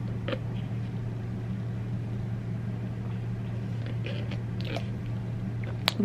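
Steady low hum of a room machine such as a heating or air unit, with a few faint clicks and a sip through a plastic straw near the start.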